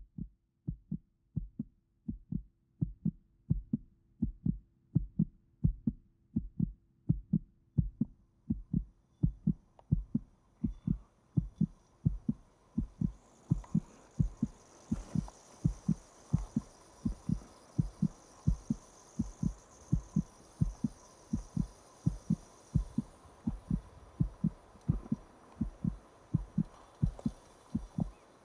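A low, even thumping beat, about two thumps a second, like a heartbeat. A high hazy layer swells in about ten seconds in and holds under the beat.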